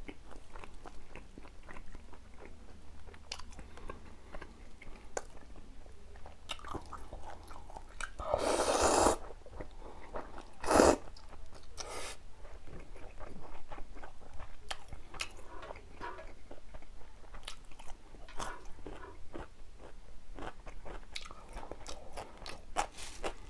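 Close-miked chewing of tomahawk steak that is tough from overcooking: steady wet clicks and smacks of the mouth. About eight seconds in there is a louder noisy rush lasting about a second, and a sharp knock comes just before eleven seconds.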